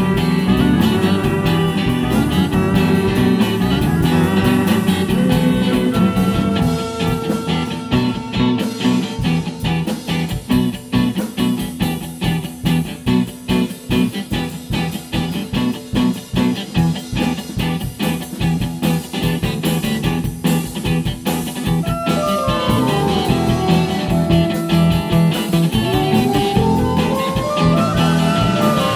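Instrumental jazz band recording: guitar, bass and drum kit playing together, with held notes over the top from about six seconds in. Near the end, lines in the upper part slide down in pitch and then back up.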